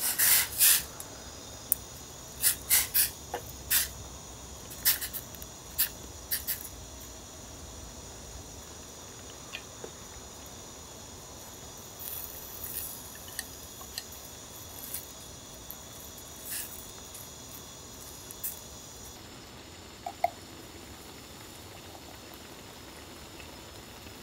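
Cooking sounds at a portable gas stove: sharp crinkles and clicks of meal-kit packaging and utensils around a stainless mess tin of broth, with light dripping and pouring. They come thick in the first several seconds and sparser after, and a faint steady high hiss stops about two-thirds of the way through.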